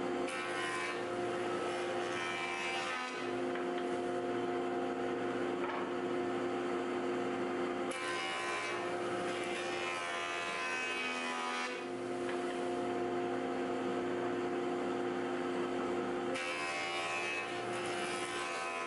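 Hammer A3 26 jointer-planer running with a steady hum, its cutterhead face-jointing a hardwood board pushed across it. A harsh cutting noise rises three times as the board passes over the knives: over the first few seconds, again about eight to twelve seconds in, and near the end.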